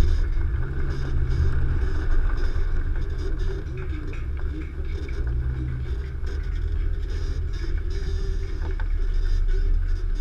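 Nissan Xterra's 4.0-litre V6 engine running as the SUV drives over off-road terrain: a steady low rumble.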